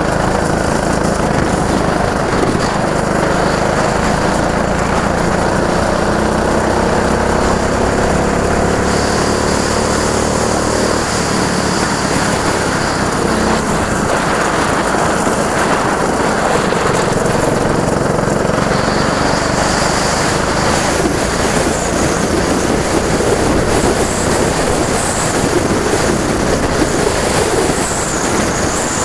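Go-kart engine running hard, its pitch climbing steadily for about the first ten seconds, then giving way to a rougher, noisier sound.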